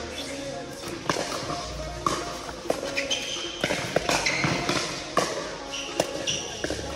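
Pickleball paddles striking a hard plastic ball: sharp, irregular pops, some from neighbouring courts, echoing in a large hall, with a few short high squeaks.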